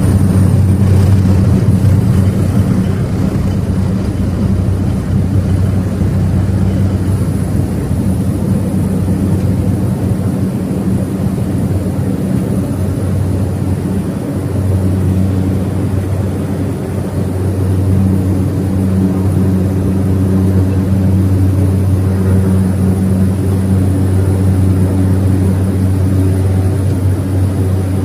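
Turboprop engine and propeller of a Cessna 208B Grand Caravan, heard from inside the cabin: a loud, steady drone over a low propeller hum. It eases slightly in the middle and builds again about two-thirds of the way through.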